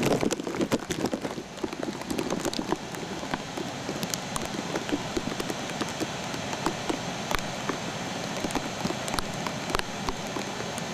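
Steady rushing noise of floodwater running through a desert wash, with many small clicks and pops spread through it. It is rougher and louder in the first two seconds.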